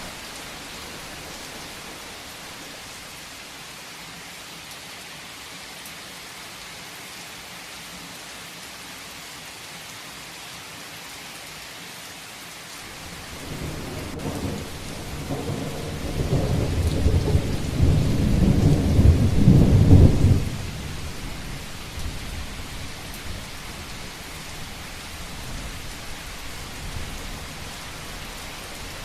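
Heavy rain falling steadily, with a long rumble of thunder that builds about halfway through, is loudest for several seconds, then drops off and trails away.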